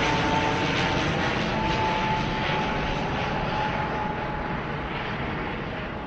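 Airplane engine noise from a passing aircraft: a broad rush with a thin steady whine, slowly fading as it moves away.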